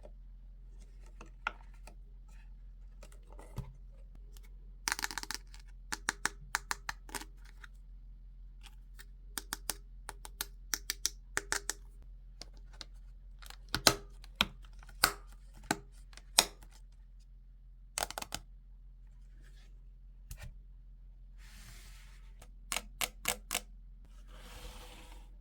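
Irregular clicks and taps of small plastic toy parts and packaging being handled during an unboxing, some in quick runs, with a few brief rustles. A low steady hum runs underneath.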